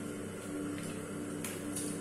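Tap water running into a sink with a steady hum, broken by a few brief splashes as hands scoop water.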